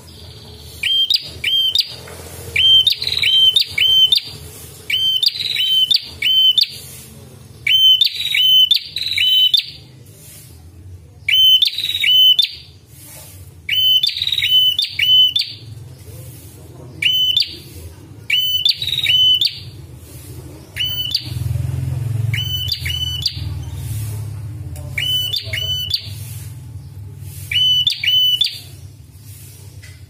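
Tailorbird calling over and over in quick phrases of three or four sharp rising chirps, about a phrase a second, over a steady low hum that grows louder about two thirds of the way through.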